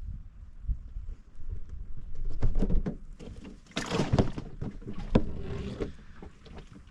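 Knocks, thumps and scraping in a small fishing boat as a crappie is landed and handled, with a louder rustling stretch about four seconds in.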